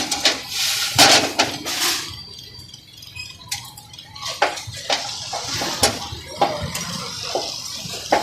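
Metal utensils and cookware clinking and knocking at irregular intervals, over a steady background hiss.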